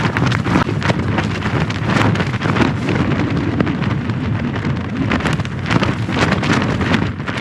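Strong gusting wind buffeting the microphone, with many short sharp cracks and flaps running through it.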